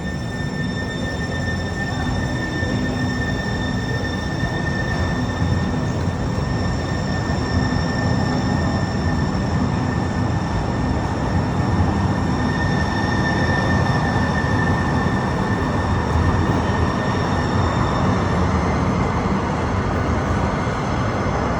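Sound Transit Link light rail train running, a steady rumble with a high steady whine over it; the whine fades out near the end.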